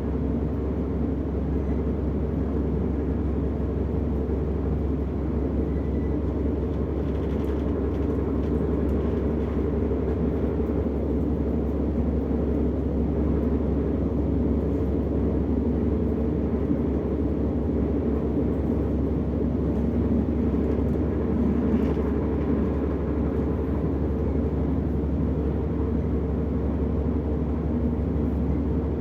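Steady low rumble inside a DB Class 425 electric multiple unit running along the line, even in level throughout.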